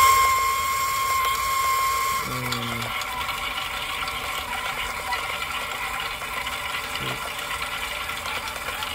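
Water softener running its flush cycle: a continuous rush of water, with a steady mechanical whine from the unit that cuts off about two seconds in.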